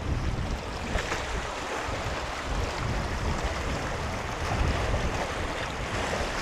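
Sea waves washing steadily against a boulder beach, with wind noise on the microphone.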